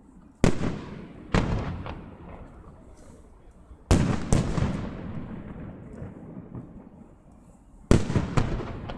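Fireworks bursting overhead: six sharp booms in three pairs, about four seconds apart, each followed by a rolling echo that fades away.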